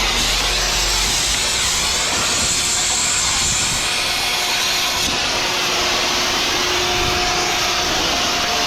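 Oxy-fuel cutting torch running with a loud, steady hiss, with no breaks.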